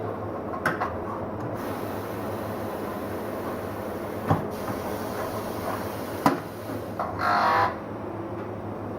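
Tyre-workshop work noise: a steady low hum with a few sharp knocks, and a brief hiss about seven seconds in.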